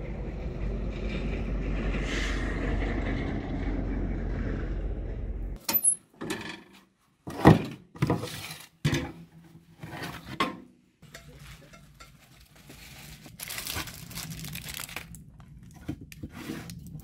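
Wind rumbling on the microphone for about the first five seconds, cutting off suddenly. Then a run of sharp metal clanks and knocks from a baking tin and the oven door of a metal stove as a loaf of cornbread is pulled out. Near the end come a faint steady hum and a few light knocks.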